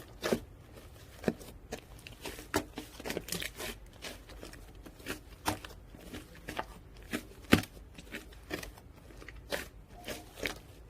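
White fluffy slime with beads mixed in, squished and pressed by hand. It makes irregular sharp clicks and pops, one to three a second, with one louder pop past the middle.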